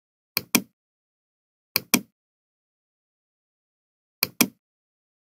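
Computer mouse button clicking three times, each a quick press-and-release double click, with dead silence in between.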